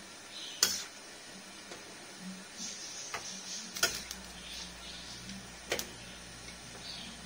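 A metal ladle stirs a stew in a steel wok, knocking sharply against the pan three times, with soft swishing and scraping between. A low steady hum comes in about halfway through.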